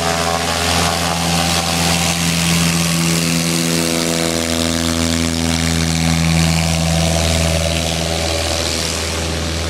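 Single-engine floatplane's piston engine and propeller at full power on its takeoff run across the water, a steady drone with a hiss over it.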